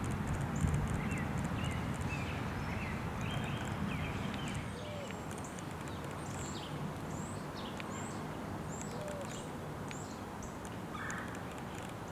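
Small birds chirping and singing, short repeated notes in the first few seconds giving way to thin high chirps, over a low background rumble that eases off about four and a half seconds in.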